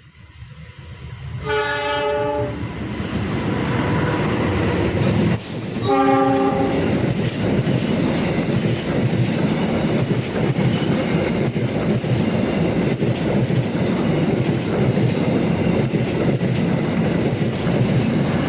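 Argo Wilis passenger train approaching at speed and sounding two short horn blasts, about a second and a half in and again about six seconds in, as a signal to the trackside watchers. Then comes the loud, steady rush and clatter of the train's wheels on the rails as it passes close by.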